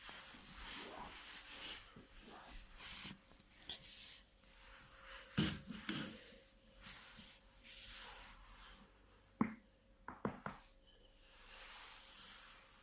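Chiropractic adjustment: a person breathes out in long breaths as hands work over the back and neck, with a few sharp cracks typical of joints popping, one about five seconds in, the loudest a little after nine seconds, and a quick cluster of two or three just after ten seconds.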